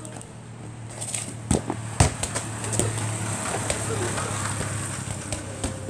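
A few sharp knocks of a football being kicked and bouncing on concrete, the loudest about two seconds in, over a low steady hum.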